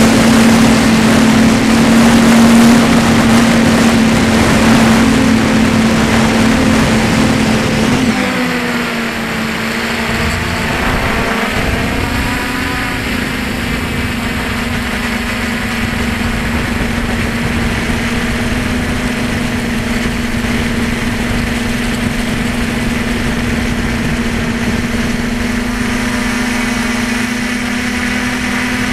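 A drone's motors and propellers humming steadily under a rush of wind. About eight seconds in the hum drops in pitch and gets quieter, then comes back up a few seconds later and holds steady.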